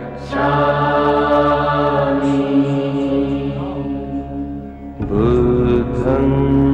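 Buddhist mantra chanted in long held notes over a steady low drone, a new phrase beginning about five seconds in.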